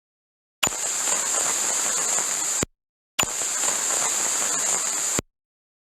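Radio-frequency interference static: two bursts of loud hissing static, each about two seconds long, switching on and off abruptly with a steady high whine running through them.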